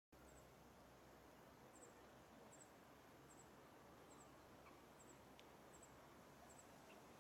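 Near silence: faint outdoor ambience with a soft, high double chirp repeating about every three-quarters of a second.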